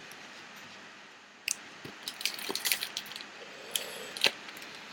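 Crinkling and sharp clicks of a trading-card pack's wrapper and cards being handled and opened, in a burst of crackles starting about a second and a half in, with a couple of louder snaps near the end.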